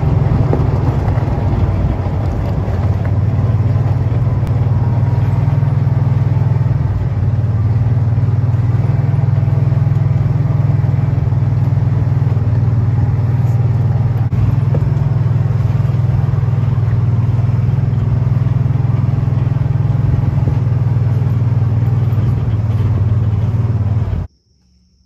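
A small utility vehicle's engine running steadily as it drives along a gravel track, a loud low drone that cuts off suddenly near the end.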